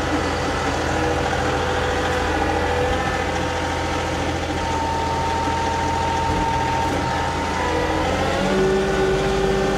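John Deere 2038R compact tractor's diesel engine running steadily under load while plowing snow, with a few steady whining tones over it; the note changes slightly near the end.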